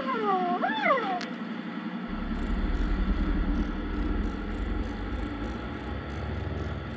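Car engine sound effect, a steady low rumble, starting about two seconds in as a toy car drives off. Before it, a short sing-song voice rises and falls.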